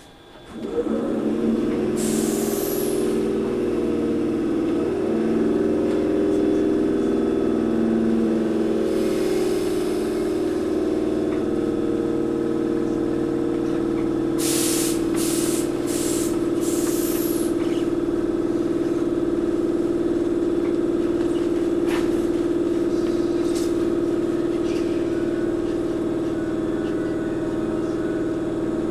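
Running sound inside a Toyohashi Railway 1800-series (ex-Tokyu 7200) resistance-control electric motor car pulling away and running: a loud steady hum of the traction motors and gears sets in about a second in, with several short hisses of air partway through.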